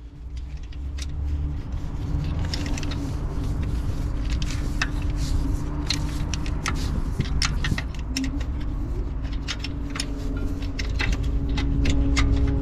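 Irregular metallic clinks and ticks of a small hand tool working a fitting under the van, over a steady low hum.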